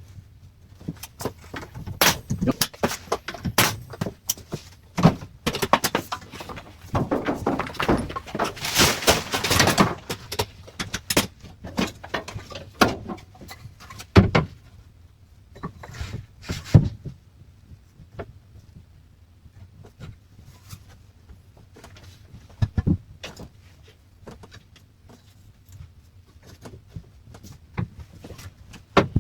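Carpentry work on wooden door jambs: irregular knocks, taps and clatter of wood and tools, with a denser, noisier stretch of about three seconds about a quarter of the way in.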